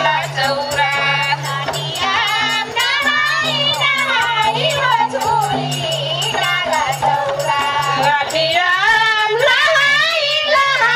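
Tharu Jhumra folk song: a singing voice over an even, steady beat on a two-headed barrel drum (madal).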